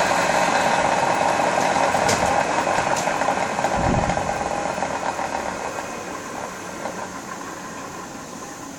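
Home-made CNC micro mill running, its 800 W water-cooled spindle and servo-driven axes making a steady mechanical noise. There is a low thump about four seconds in, after which the noise gradually fades as the machine winds down.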